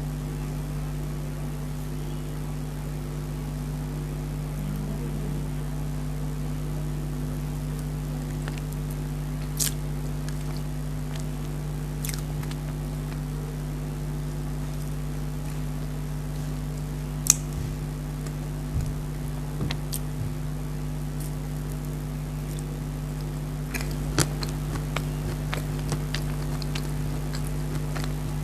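A steady low electrical-sounding hum throughout, with scattered soft clicks and smacks from eating chocolate cake; the sharpest click comes a little past the middle.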